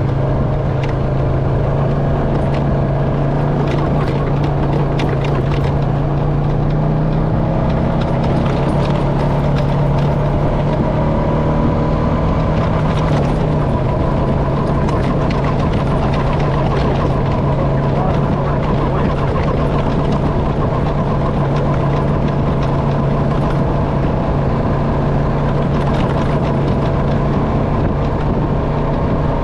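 Honda FourTrax Foreman ATV engine running steadily at trail-cruising speed, its note easing down a little about halfway through, with scattered knocks and rattles from the machine on the rough sand trail.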